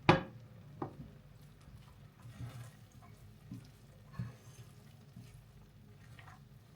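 Kitchen handling sounds: a sharp clack just after the start, a lighter click under a second later, then a few soft knocks and brief rustles, as things are set down and moved while cooking.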